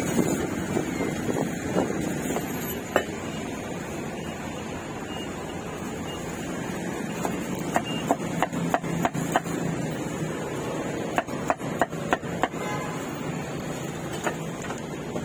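Two runs of quick, sharp knocks, about three a second, in the second half, with a few single knocks before them, over a steady hum of background noise.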